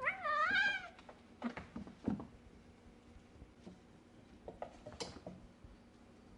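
A kitten meows once in the first second, a single call wavering up and down in pitch, followed by a few scattered soft knocks and taps.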